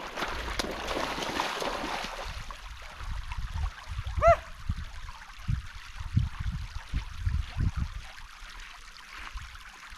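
Wading through a shallow, flowing river in boots: rushing water with a run of uneven low splashing steps through the middle, and one short pitched cry about four seconds in.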